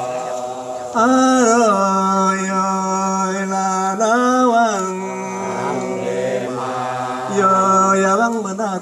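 A group of voices chanting a Dayak Kenyah traditional song in long held notes. The voices swell louder three times, about every three seconds, with the pitch lifting and settling back onto the held tone.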